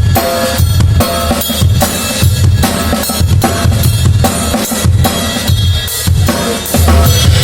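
Drum kit played in a steady beat, with the kick drum thumping about twice a second and snare and cymbal hits on top; other pitched instruments sound faintly underneath.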